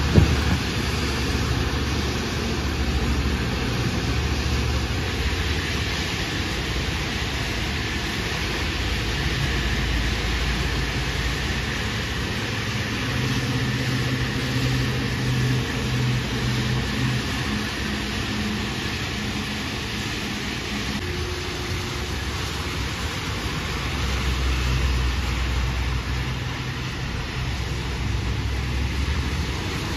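Steady road traffic on a rain-soaked highway: tyre hiss on the wet road over a low engine rumble, with a louder engine hum for a few seconds about halfway through.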